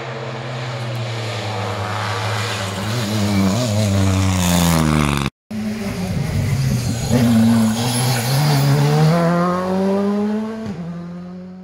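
Rally car engines at full throttle: a car's engine note climbs as it accelerates, then stops abruptly at an edit about halfway through. Another car follows, its engine note rising through the gears with a gear change near the end.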